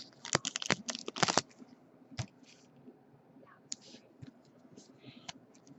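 Trading cards being handled, with sharp clicks and crinkles: a quick run in the first second and a half, then scattered single clicks.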